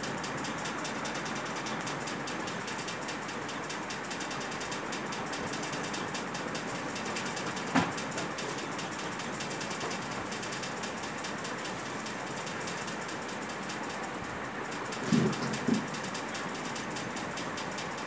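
A steady mechanical whirr with a fast, even ticking running through it. A single sharp click comes about eight seconds in, and two short low knocks come near the end.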